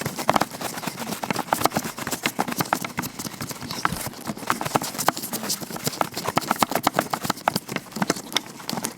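Vinyl-latex gloved hands close to the microphone making quick, irregular crinkling and tapping sounds, many sharp clicks a second.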